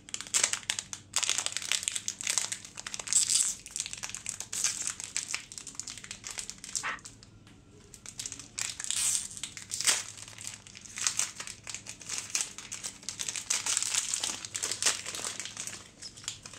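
Plastic and foil packaging of an HP ink cartridge crinkling and crackling as it is handled and unwrapped by hand, easing off briefly about halfway through.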